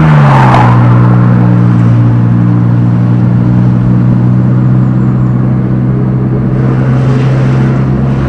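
Motor vehicle engine running with a steady, loud hum. Its pitch eases down just after the start, then holds steady.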